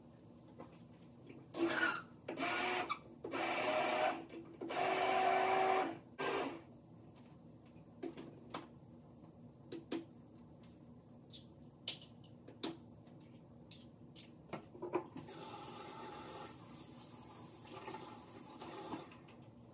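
Kitchen blender running in several short loud pulses, blending steamed yellow squash with milk for pancake batter. Light clicks and knocks of handling follow, and a softer steady whooshing sound comes in for a few seconds near the end.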